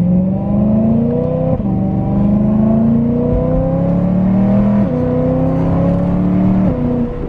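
BMW E92 M3's S65 V8 with a valved Valvetronic Designs exhaust, heard from inside the cabin while accelerating through the gears. The engine note climbs steadily and drops sharply at three upshifts, about a second and a half, five and six and a half seconds in.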